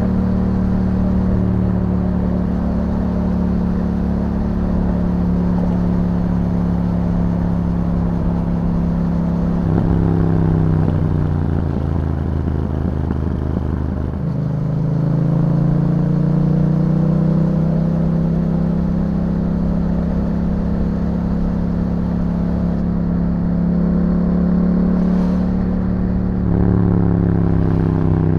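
Yamaha MT-07's 689 cc parallel-twin engine running through an Akrapovic exhaust while riding. The engine note holds steady, changes about ten seconds in, climbs slowly from about fourteen seconds, and shifts again near the end.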